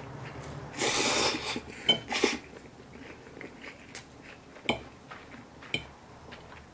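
Spaghetti slurped into the mouth with a loud hissing suck about a second in and a couple of shorter sucks just after, then quiet chewing with a few sharp clinks of a metal fork against the plate.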